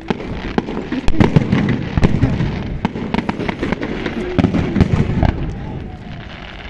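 Aerial fireworks going off in a rapid, irregular series of loud bangs and crackles, densest in the middle and thinning out near the end.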